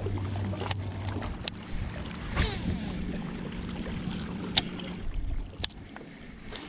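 Boat motor humming steadily, with a few sharp clicks over it; the hum stops about five seconds in.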